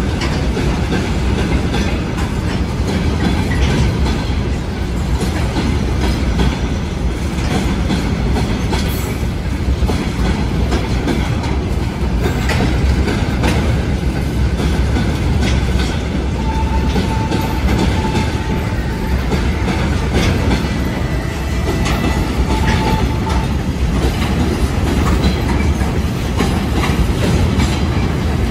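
Railway wagons rolling steadily past close by, their wheels clicking over the rail joints throughout. Twice past the middle a faint thin wheel squeal rises above the rumble.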